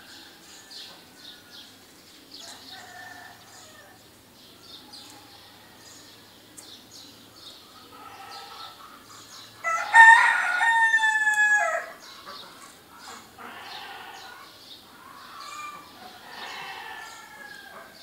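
Morning birdsong chorus: many small birds chirping and calling over each other, with one loud, drawn-out call lasting about two seconds near the middle, dropping a little in pitch at its end.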